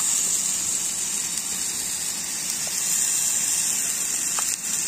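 Portable canister gas stove burning with a steady hiss under a cooking pot, over a steady high-pitched buzz.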